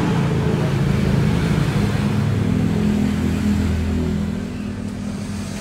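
Low, steady engine hum that eases off after about four seconds.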